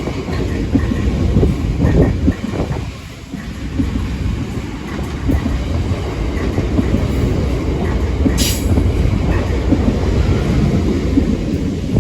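Freight train hauled by a Class 66 diesel locomotive rolling past, its wagons making a steady heavy rumble. One brief sharp high-pitched sound comes about eight and a half seconds in.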